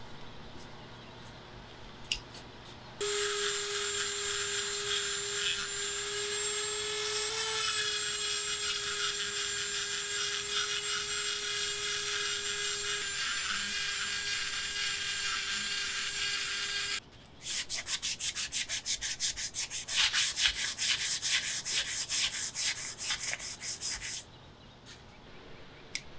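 Sanding work: a small electric tool runs steadily for about fourteen seconds with an even hum. It then gives way to about seven seconds of rapid, regular rubbing strokes, as in hand sanding.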